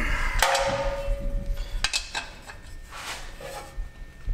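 Wrench and metal parts clinking while the exhaust manifold bolts are tightened: a sharp metallic clank about half a second in that rings on for about a second, then a few scattered clicks.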